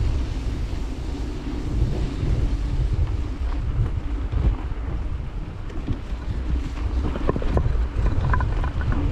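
Wind buffeting the microphone of a camera riding along on a bicycle: a steady low rumble and rush, with a few short clicks and squeaks near the end.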